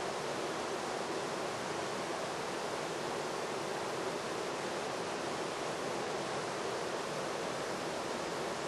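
Steady, even rushing noise with no change in level, mostly in the middle of the range.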